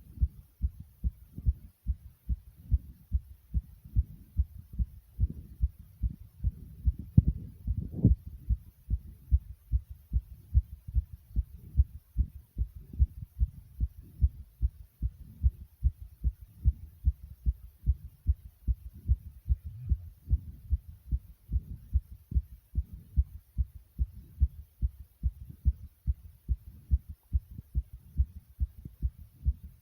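A fast human heartbeat: rapid, evenly spaced low thumps with no let-up, one of them stronger about eight seconds in.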